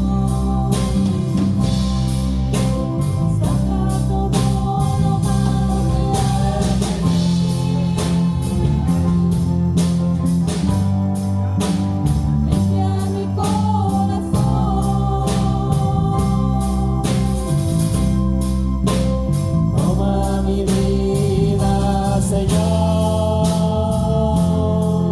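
Live church worship band playing a slow praise song, with a heavy bass line, a steady drum beat and sustained singing.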